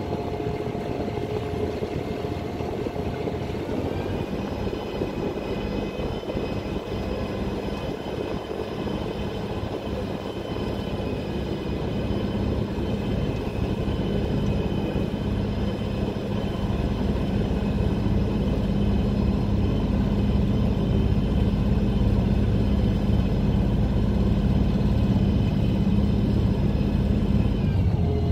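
A ferry's engine running steadily. About four seconds in it revs up to a higher, steady pitch, grows louder through the middle of the crossing, and drops back near the end.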